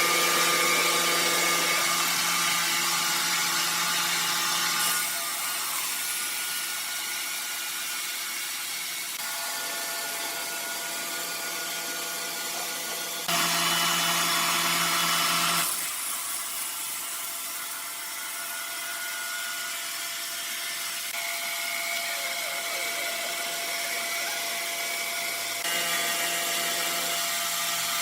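Sawmill saw running and cutting wood, a steady mechanical whine with hiss. It grows louder suddenly about 13 seconds in and drops back about two seconds later.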